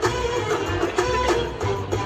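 Middle Eastern-style belly dance music: a melody over regular drum beats.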